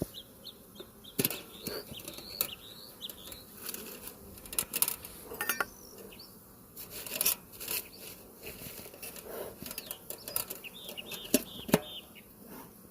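Irregular clicks, knocks and soft puffs of beehive work: a hive tool, the wooden hive parts and the smoker's bellows being worked. Faint high chirping comes in near the start and again near the end.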